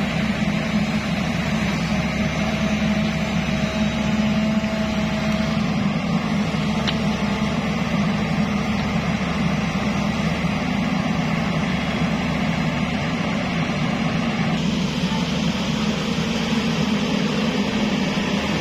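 Engine of a tracked hydraulic excavator running steadily under load while its bucket digs and lifts soil, with a faint steady whine over the first few seconds.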